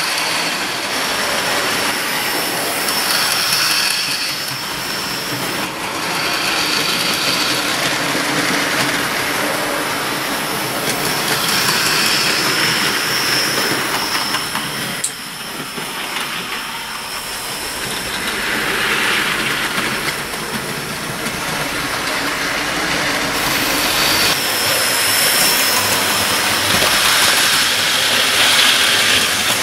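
OO gauge model trains running on the track: small electric motors whirring and wheels rattling over the rails, with a high whine that comes and goes. The sound changes abruptly about halfway through.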